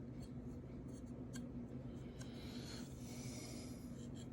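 Faint, soft scratchy rubbing as a knife edge is felt by hand for a burr, over a steady low electrical hum, with a couple of light clicks about a second in.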